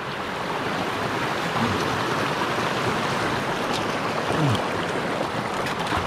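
Mountain stream rushing steadily over rocks and small cascades.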